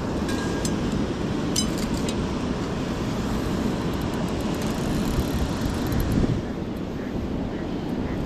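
Steady rush of churning river water below a dam, with a few light clicks about one and a half to two seconds in.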